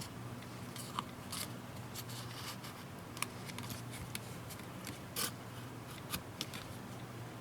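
Pry tool working under a tablet's glued glass screen: scattered sharp clicks and crackles as the adhesive breaks loose, over a steady low hum.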